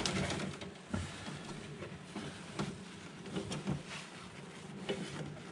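Handling noise while working on an electrical distribution board: scattered light clicks and knocks, irregularly spaced, over a faint low hum.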